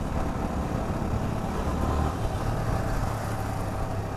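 Road traffic noise: a steady low rumble of passing vehicles and engines.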